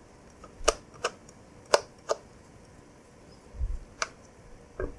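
Screwdriver turning a small screw out of a plastic telephone handset: about five sharp, irregular clicks of the tip and screw, with a dull low knock of the handset around three and a half seconds in.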